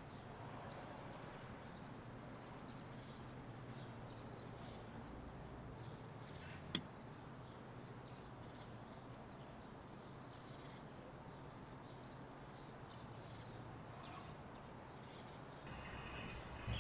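Faint steady hum of room tone, broken once by a single sharp click about seven seconds in. Near the end, water begins running from a hose into a sink.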